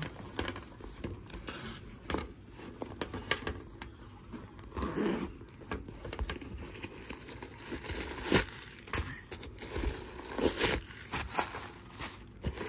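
Hands handling a small signature-canvas handbag: its metal zipper being pulled open and the bag and its lining rustling and crinkling, with scattered clicks and scrapes.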